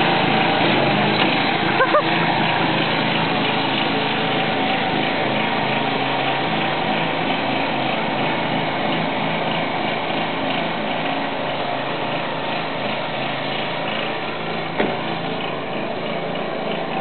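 John Deere rear-engine riding mower's small engine running steadily as the mower drives off, growing slightly quieter as it moves away.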